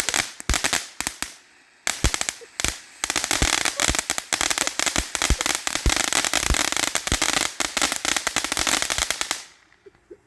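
Fireworks going off as dense, rapid crackling pops. There is a short lull about a second and a half in, then a long unbroken volley of pops that stops suddenly near the end.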